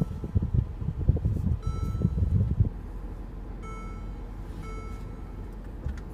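Mercedes-Benz SL550 cabin chime sounding three times, short clear tones about one to two seconds apart, as the parking assist system is switched on. Under it is a low cabin rumble that drops off about three seconds in.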